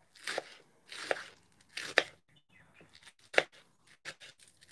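Kitchen knife slicing green onions on a plastic cutting board: a handful of separate, unevenly spaced chops, the loudest about two seconds in and again a little after three seconds.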